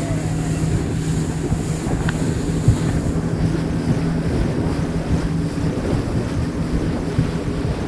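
Boat engine running with a steady low drone, and wind buffeting the microphone over the sound of water as the boat moves along.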